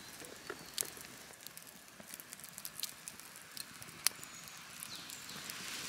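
Small fire of twigs and dry grass crackling faintly, with scattered sharp pops, the clearest about four seconds in.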